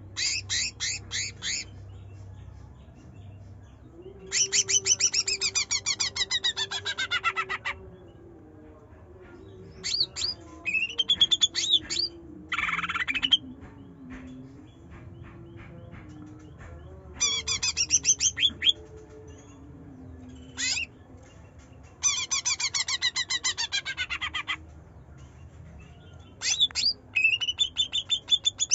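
Cucak ijo (green leafbird) singing in repeated bursts of fast, rapid-fire notes. Some bursts are long falling runs, others rising chirps, and one is a short harsh squawk about halfway through.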